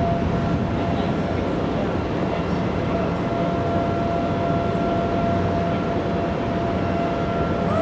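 Federal Signal STH-10 civil defense siren sounding one steady, held tone over a constant low rumble of background noise.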